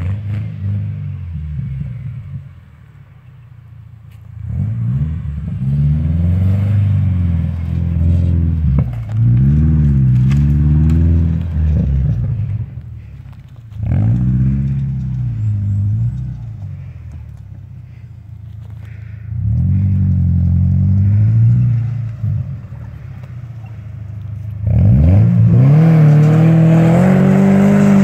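A 1990s Subaru Legacy wagon's flat-four engine revving up and easing off again several times as the car climbs off-road, loudest near the end. Its tyres scrabble over the loose forest floor.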